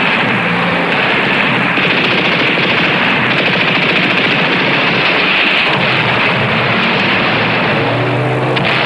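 Sustained rapid machine-gun fire mixed with running vehicle engines, a dense, continuous battle sound effect with no let-up.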